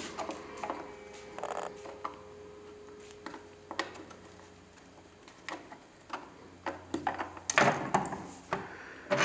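Hand wire strippers clicking and snipping as insulation is stripped off the light's wire ends, with scattered small handling clicks. A louder rustling knock comes near the end.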